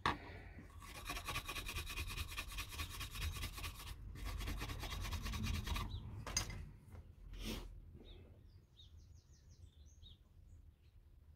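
Rapid back-and-forth rubbing on the steel blade of an old chisel, to bring up its worn maker's stamp, with a short break about four seconds in. Two light knocks follow.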